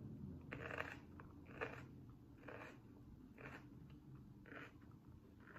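Raw orange bell pepper crunching as it is bitten and chewed: five crisp crunches, about one a second.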